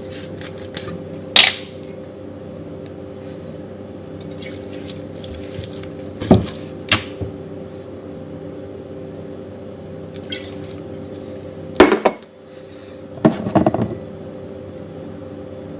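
Cooking sake poured from a bottle onto raw chicken thighs, splashing and dripping, with a few sharp clinks and knocks from the bottle and dish.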